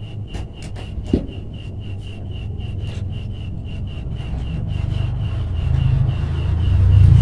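Rubbing and handling noise of copper house wires being twisted together with combination pliers at a plastic junction box, with a sharp knock about a second in. Underneath runs a steady high ticking about four to five times a second, and a low rumble swells toward the end.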